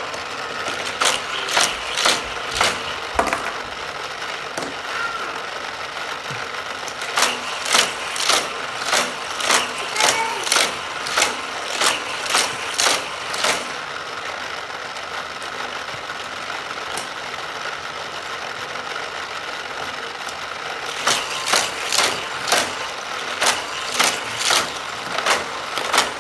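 Battery-powered booster motors of a Hot Wheels figure-eight crash track set whirring steadily, with runs of sharp plastic clacks about twice a second as die-cast cars are flung through the boosters around the track. The clacking comes in spells and stops for several seconds in between.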